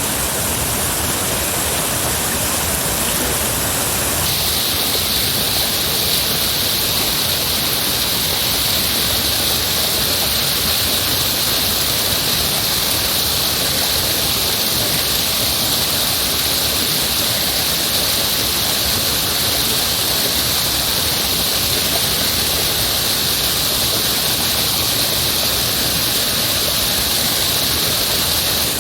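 Heavy rushing water, a steady, even wash of noise. About four seconds in it abruptly turns brighter and hissier.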